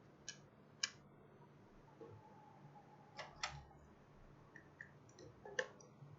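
A few sharp, scattered clicks and light taps of parts or tools being handled on a repair bench, as a repaired laptop board is set up for testing.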